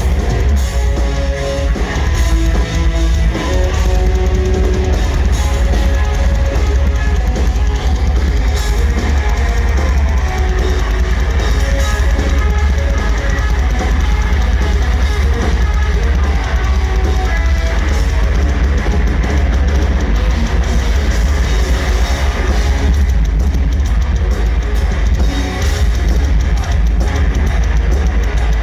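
Black metal band playing live with no vocals: distorted electric guitars over heavy bass and a drum kit.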